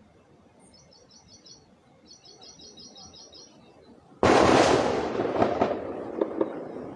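A single loud gunshot goes off about four seconds in, and its echo rolls away over a couple of seconds with a few fainter cracks in it. Before it, a small bird gives two quick runs of high chirps.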